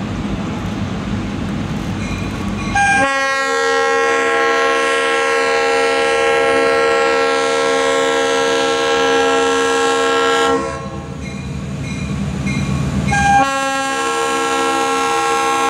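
Diesel freight locomotive's multi-note air horn. It sounds a long blast starting about three seconds in and lasting roughly eight seconds, then a second blast near the end, over the low rumble of the approaching train.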